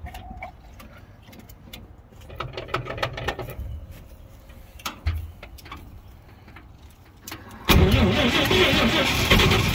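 1950 Chevrolet 4400 truck's inline-six engine being started: a few clicks and a short rattle, then about three-quarters of the way through it fires suddenly and keeps running.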